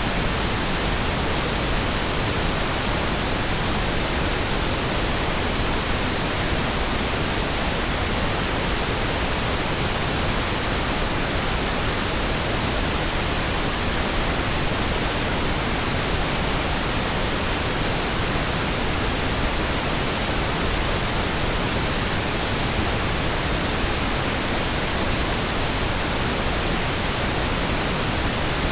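Steady, unchanging pink noise: an even, continuous hiss spread from the lowest to the highest pitches.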